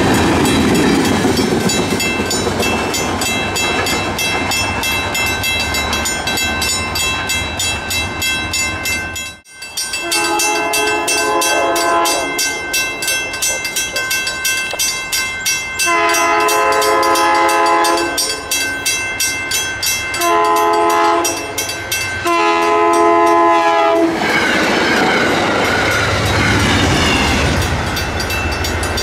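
A freight train rolls over a grade crossing, wheels clacking over the rails, while the crossing bell rings rapidly. Then an approaching CT Rail diesel locomotive sounds its multi-tone horn in the grade-crossing pattern of long, long, short, long. The rumble of the oncoming train grows louder near the end, with the crossing bell still ringing.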